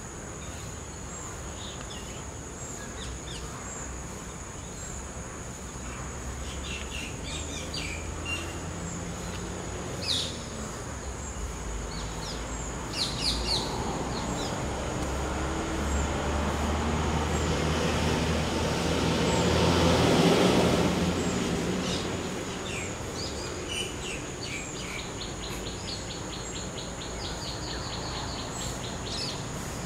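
Outdoor ambience of birds chirping over a steady high-pitched drone, while a low rumble swells, peaks about two-thirds of the way through and fades away.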